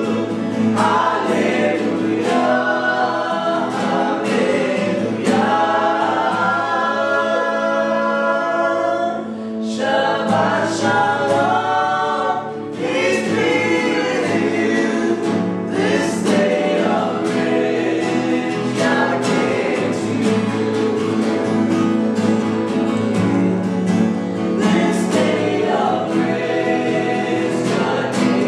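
A gospel worship song sung by a woman's voice with a chorus of other voices, in continuous sung phrases.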